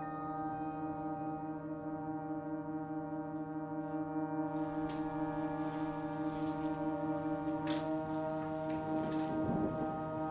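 A sustained, droning chord of several held tones, one low note pulsing quickly. Faint clicks and knocks come in from about halfway, with a sharper one near the end.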